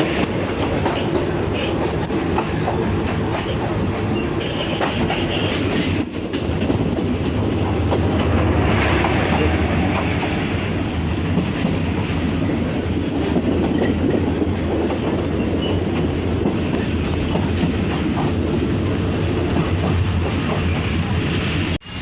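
Passenger train running along the track: a steady rumble of the carriage and wheels, with brief breaks about six seconds in and near the end.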